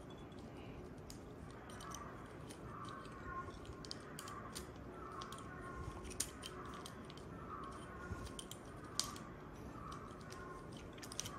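Faint, irregular clicks and ticks of a Katana lock decoder tool being handled and worked in the hands.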